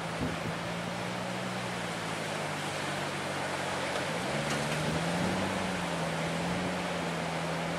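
Four-wheel-drive ute engine running under load in deep soft sand, its pitch rising about four seconds in as it revs harder to push up the track, over a steady hiss.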